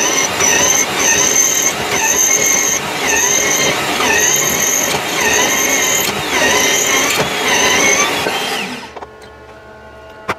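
Benchtop drill press boring a hole in an aluminium part: a drill bit cutting with a high squeal that rises and falls in repeated pulses about a second apart. The cutting stops about nine seconds in, leaving the press's motor running quietly.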